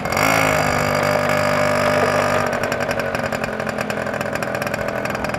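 Dune buggy's small engine running as the buggy drives along, louder for about the first two and a half seconds, then quieter and steadier.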